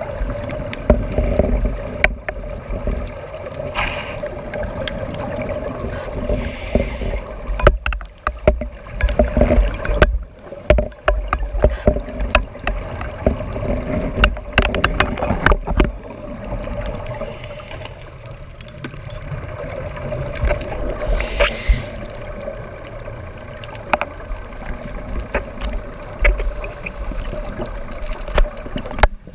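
Underwater recording of a boat's engine and propeller: a steady drone, with low rumbling surges at intervals and scattered sharp clicks.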